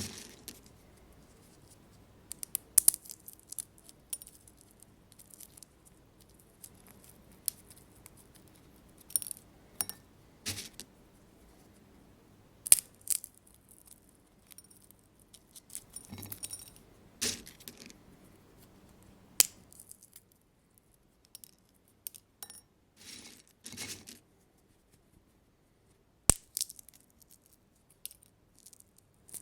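Sunflower seeds being cracked open one after another, sharp shell cracks and short crackly bursts every second or two, with bits of shell clinking into a glass bowl.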